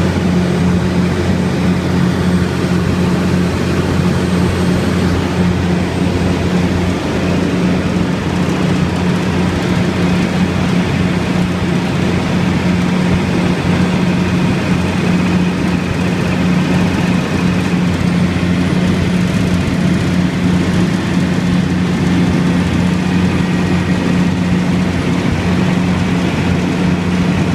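Diesel engine of a Multiquip DCA180SSV generator set running steadily at about 1800 rpm, its generating speed, with a loud, even low hum.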